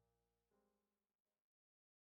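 Near silence, going to dead digital silence about one and a half seconds in.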